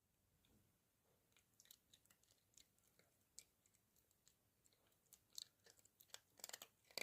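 Toy poodle chewing food, faint crunchy clicks that come thicker and louder over the last two seconds.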